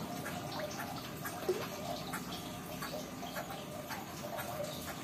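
Water dripping: irregular light ticks over a steady background, with one brief louder sound about a second and a half in.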